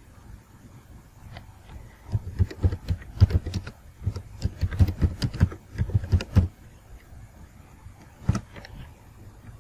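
Typing on a computer keyboard: a quick run of key clicks lasting about four seconds, then a single key press near the end.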